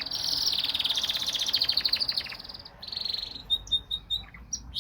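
Gloster canary singing: a fast, high trill for about two seconds, then after a short pause a run of separate short, clipped notes.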